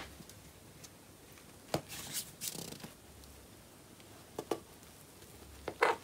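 A few light clicks and scrapes of a utensil against the rim and wall of a tin can as a canned hamburger is pried out, the loudest pair near the end.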